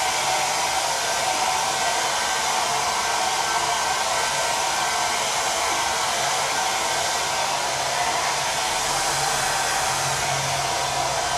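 Handheld hair dryer blowing steadily at a constant speed, aimed at a canvas to dry acrylic paint.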